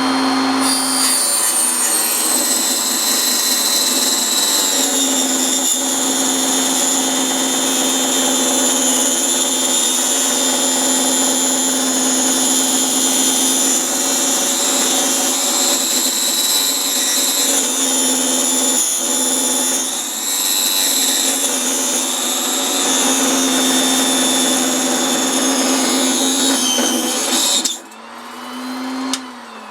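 Proxxon benchtop table saw cutting through a strip of pine about 11 mm thick, its pitch dipping several times as the blade bogs under the load. The cut is near the limit of the saw and is scorching the wood. Near the end the saw is switched off and winds down with a falling whine.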